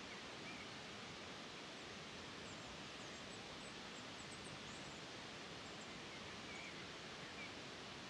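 Steady, faint outdoor hiss of natural ambience, with small, high-pitched bird chirps scattered through it, clustered in the middle.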